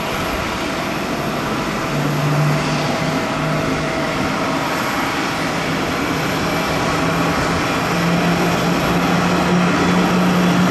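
Jet airliner engines, a Boeing 787-8's GEnx turbofans, running with a steady rush and a low hum that comes in about two seconds in, edges up in pitch and grows a little louder near the end.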